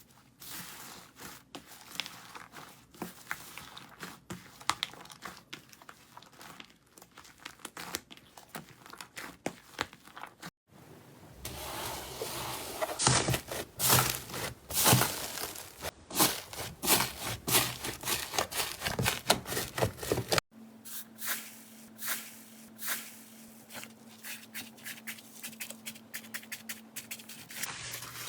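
Slime being pressed and worked by hand, with dense crackling and popping clicks. The sound changes abruptly about ten and twenty seconds in, and the middle stretch is the loudest.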